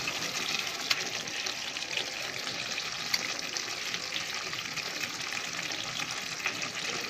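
Chicken and potato curry sizzling in a kadai as coriander paste is stirred in, with a couple of light knocks of the spatula against the pan.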